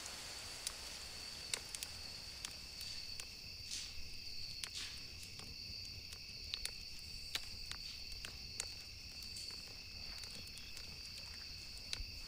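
Crickets trilling steadily, with scattered sharp crackles from a small campfire.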